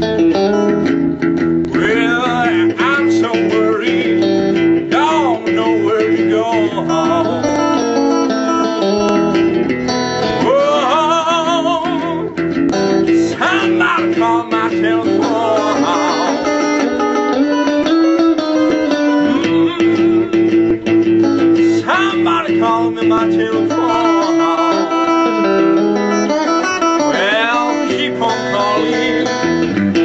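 Electric blues: an electric guitar playing, with a man singing over it.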